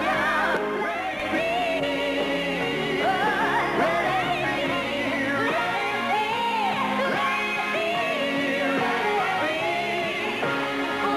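Live pop music: several singers, men and women, taking turns on long, sweeping vocal lines over a band.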